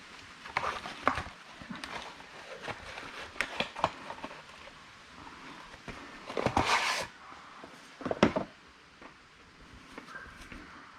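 Objects being handled and set down: scattered clinks and knocks, a short rustling burst about six and a half seconds in, and a heavier knock about eight seconds in.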